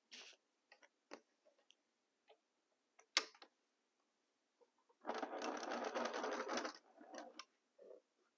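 Electric sewing machine stitching a seam through pieced cotton, running in one short burst of about a second and a half from about five seconds in. Before it come light clicks and fabric handling, with one sharp click about three seconds in.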